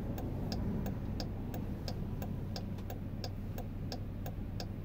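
Car turn-signal indicator ticking steadily, about three clicks a second in an alternating tick-tock, over the low steady hum of the cabin.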